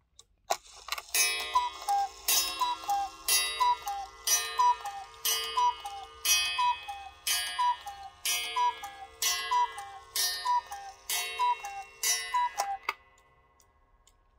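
Mechanical Black Forest cuckoo clock striking the hour with its cuckoo call. The falling two-note 'cu-ckoo' comes about a dozen times, once a second, each call opened by a sharp strike. The calling stops with a final click near the end.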